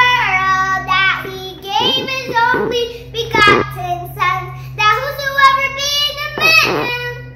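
A young girl singing a scripture song on John 3:16–17, with a steady low hum underneath.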